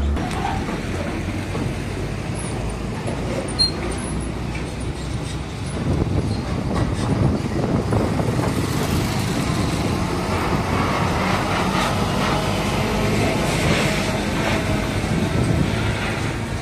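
Heavy diesel trucks passing close by in road traffic, engines running and tyres rolling, with the rumble swelling a little past a third of the way in.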